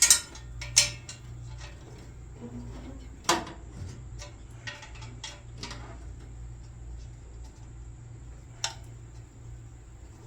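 Scattered metallic clinks and knocks of hand tools working on a truck's exhaust header, with a few sharp ones in the first second, another about three seconds in and one more later, over a steady low hum.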